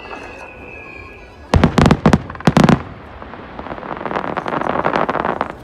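Fireworks: a whistle falling slightly in pitch fades out about a second in, then several loud bangs of shells bursting, followed by a dense rush of crackling.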